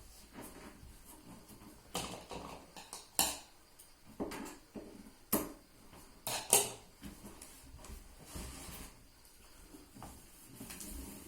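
Scattered knocks and clatter of hard objects being handled, with three sharper knocks about three, five and six and a half seconds in.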